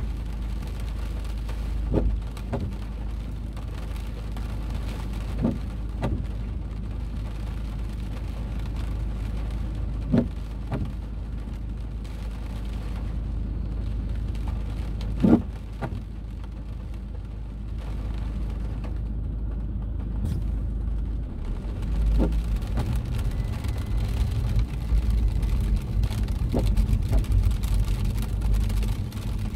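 Car engine idling, heard inside the cabin with rain falling on the car, a few short sharp knocks every few seconds. About 22 seconds in the engine grows louder and rougher as the car pulls away.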